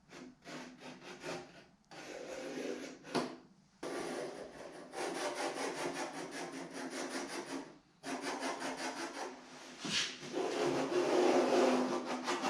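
Rasping, scraping noise of a tool working the edge of a sheet-steel patch panel, as its corners are cut out and its edges trimmed. It comes in four spells of a few seconds each, with short pauses between them.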